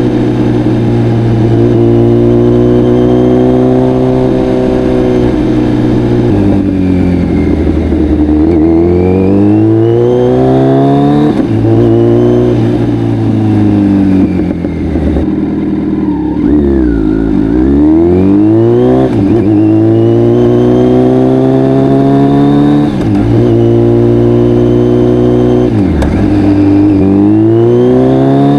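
Kawasaki Z900's inline-four engine through an Akrapovic full exhaust, accelerating and easing off over and over. The pitch climbs, falls away at each shift or roll-off, and then climbs again, with a few deep drops to low revs before pulling up once more.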